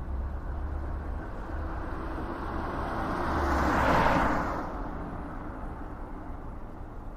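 Outdoor background noise with a steady low rumble, as a passing vehicle swells up, is loudest about four seconds in, and fades away.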